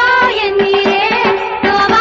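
Indian devotional music: a melody line bending in pitch over a steady held drone note, with a quick, even percussion beat.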